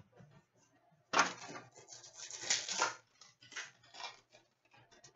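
Stack of trading cards being handled, the cards sliding against one another with a dry rustle. There is a main stretch of about two seconds starting a second in, and a shorter one near the four-second mark.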